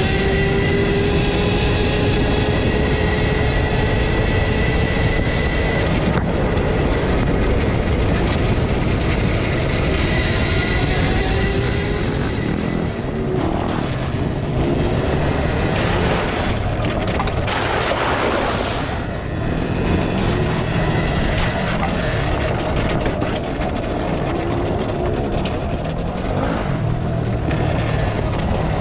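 Volcon Grunt electric motorbike riding on a gravel road: the motor's whine glides up and down in pitch with speed, over a constant rush of wind and tyre noise.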